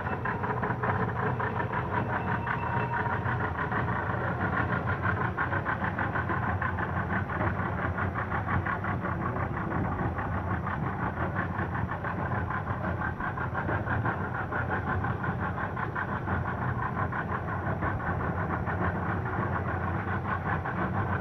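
Outboard motor of a small fibreglass boat running steadily under way, a fast even drone with no change in speed.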